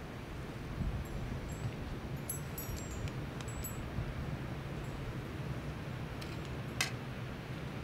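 Metal spoons giving a few light, high-pitched metallic pings, and one sharp click near the end, as spice and salt are spooned onto a steel tray of chopped vegetables. A steady low background hum runs underneath.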